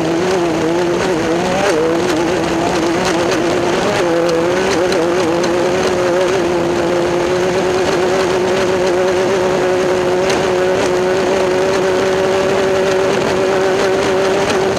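Class 10 desert race car's engine running at high, steady revs, its pitch wavering over the first few seconds, then rising slightly and holding, over a constant rushing noise.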